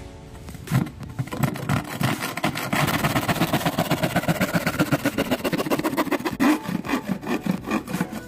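Handsaw cutting through a thin plywood panel in quick back-and-forth strokes, starting about a second in and stopping just before the end as the corner is cut off.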